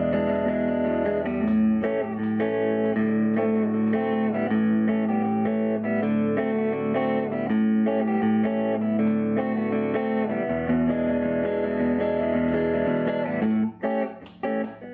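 Electric guitar played through a 1951 Gibson BR-6 tube amplifier with a clean tone: ringing, sustained chords, then short choppy notes near the end.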